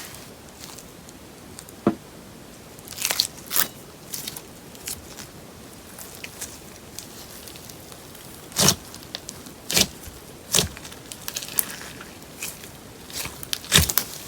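Slime being squeezed and worked by hand, giving irregular sticky pops and clicks: a few sharp ones stand out, about a quarter of the way in and again several times in the second half.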